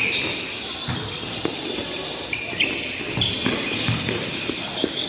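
Futsal ball being kicked and bouncing on a hard court, a series of irregular dull thuds.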